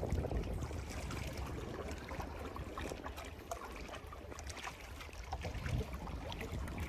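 Water lapping and trickling with wind rumbling on the microphone, and a few small clicks and taps.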